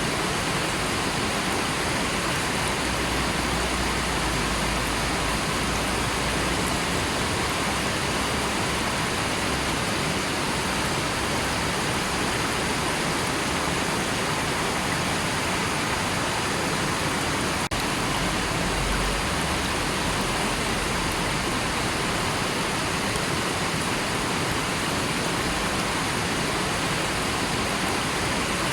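River water rushing in a steady, unbroken wash of noise, with a barely noticeable break about 18 seconds in.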